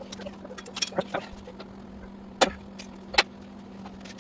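Scattered sharp clicks and metallic clinks of hand tools and parts being handled during motorcycle wheel work, with two louder snaps, one a little past the middle and one near the end, over a steady low hum.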